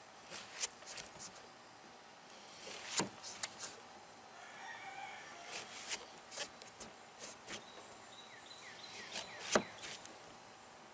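Faint scattered clicks and taps as a cut plug of watermelon rind is worked in and out of the melon, the sharpest about three seconds in and near the end. Faint bird calls in between.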